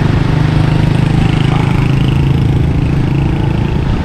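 A motor vehicle's engine running steadily close by, a constant low hum amid road traffic.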